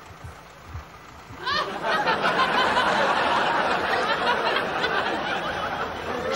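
Studio audience laughter that breaks out about a second and a half in and carries on loudly as a crowd of many laughing voices.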